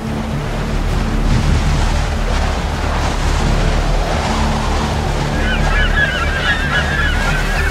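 A steady low rumble like wind or rushing water. From about five seconds in, a flock of birds calls over it with many short chirps.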